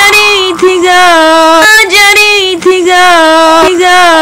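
A woman singing long held notes, a new note about every second on much the same pitch.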